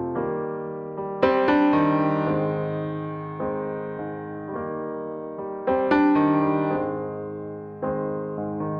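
Slow solo piano music: gentle chords and single notes are struck and left to fade, with a stronger chord about a second in and another near six seconds.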